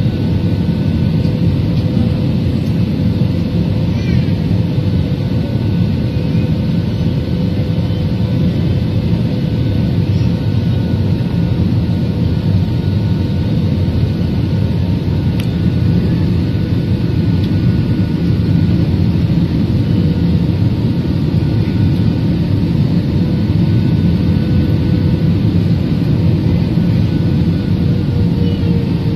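Steady roar of jet engines and rushing air heard inside a jet airliner's cabin while it comes in low to land, with a steady whine that drops slightly in pitch near the end.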